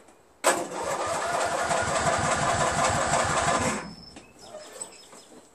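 Electric starter cranking the lawn tractor's Briggs & Stratton 14 hp opposed-twin engine in the cold, with a steady chugging of about eight compression beats a second. It is released after about three seconds without the engine catching.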